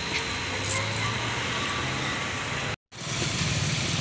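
Steady street traffic and vehicle engine noise with a low hum. It breaks off for a moment near three seconds in, then resumes as similar steady outdoor noise.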